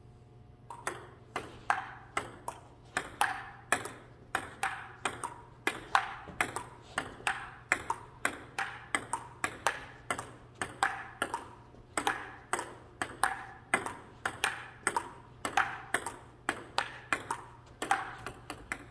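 Table tennis ball clicking back and forth off paddles and table in a long rally, about two hits a second, starting about a second in.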